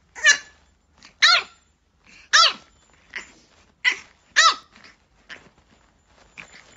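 French bulldog puppy barking in a series of about eight short, high-pitched yaps, each rising and falling in pitch, the later ones weaker.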